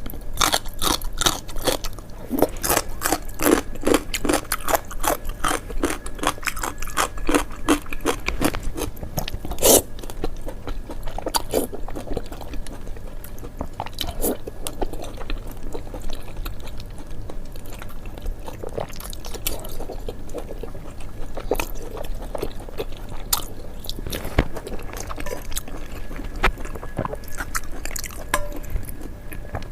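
Person biting and chewing roujiamo, a crisp flatbread stuffed with meat, with many rapid crunches for the first ten seconds or so, then slower, sparser chewing.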